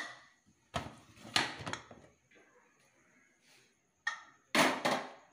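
Metal pressure cooker being opened: the lid clanks and scrapes against the pot in a series of short, sharp knocks. The loudest come near the end.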